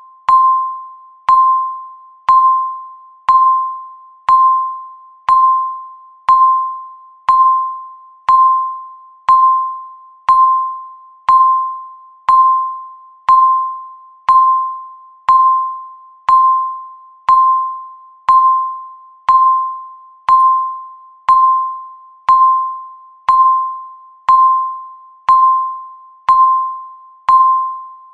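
Electronic countdown-timer beep, a single ringing tone struck once a second and fading away between strikes, marking each second counted down.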